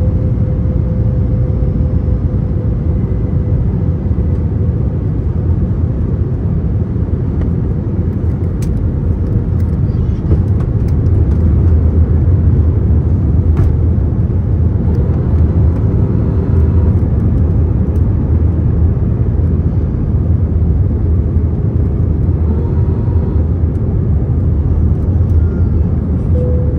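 Steady low roar inside an Airbus A321 airliner's cabin: engine and airflow noise, swelling slightly midway, with a faint tone near the start that fades away and a couple of faint clicks.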